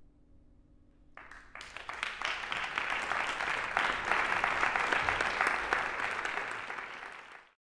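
Concert audience applauding after a piano performance: the clapping starts about a second in, swells quickly to a steady full applause, then cuts off abruptly near the end.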